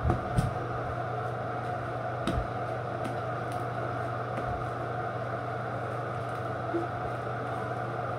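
Steady hum and whoosh of a bathroom exhaust fan, with a few soft low thumps in the first half.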